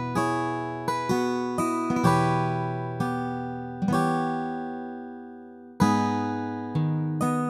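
Background music: an acoustic guitar plucking chords, each one struck and left to fade, with one chord ringing longer through the middle.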